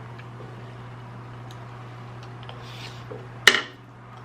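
A single sharp clink of cutlery against a dish about three and a half seconds in, with a few faint ticks before it, over a steady low hum.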